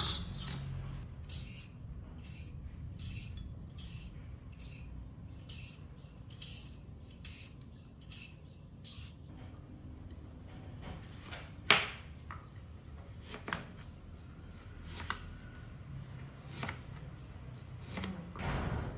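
Large kitchen knife slicing a carrot into rounds on a plastic cutting board: each cut ends in a sharp knock of the blade on the board, about one every second and a half, the first and loudest just before halfway. Before the cutting starts, a run of light, even scraping strokes, about three every two seconds.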